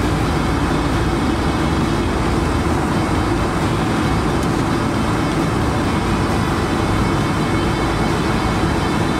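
Steady cabin noise of a Boeing 777-300 taxiing: engine hum and low rumble heard through the fuselage, with a faint high whine.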